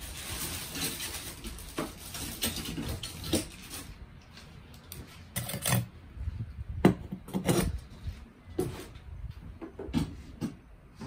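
Hard objects being handled: rustling and clinking at first, then a series of separate sharp knocks and clunks, the loudest about seven seconds in.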